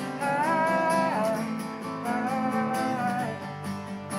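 Live music: a guitar strummed steadily, with a melody line gliding and held over it twice.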